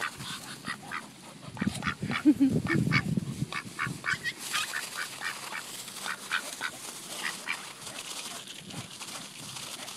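Pekin ducks quacking in short, repeated calls while they feed, with a low rumble for a couple of seconds near the start.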